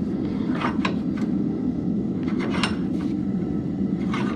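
Steady low roar of the forge, with several light metallic clinks and clanks of steel tools and stock being handled.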